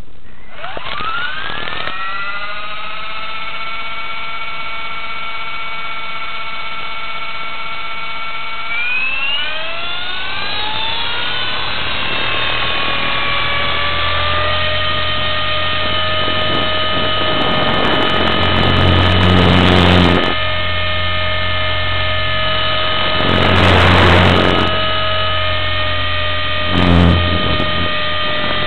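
Raptor RC helicopter's engine and rotor heard from a camera mounted on the craft, spooling up with a rising whine about half a second in and holding a steady pitch. About nine seconds in it climbs to a higher pitch and holds there. Three bursts of rushing noise come in the later part.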